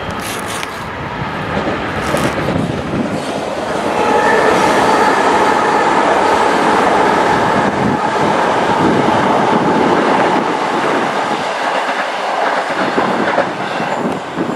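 Southern electric multiple unit running past along the platform, its wheels clattering over the rail joints under a steady motor whine. It is loudest through the middle and thins out near the end.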